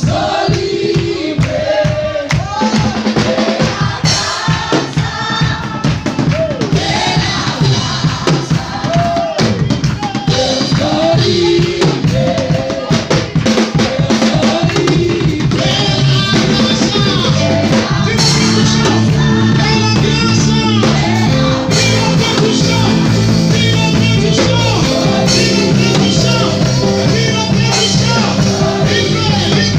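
Worship song: a voice singing over a drum kit and bass, the band filling out and getting slightly louder about halfway through.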